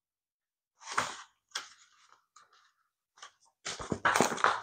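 Pages of a paper instruction booklet being turned and handled, rustling in short bursts: one about a second in, a few faint scraps after it, and a louder, longer rustle near the end.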